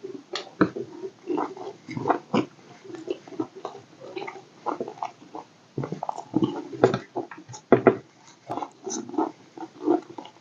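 A person chewing food with the mouth open close to the microphone, making an irregular run of wet lip-smacks and clicks.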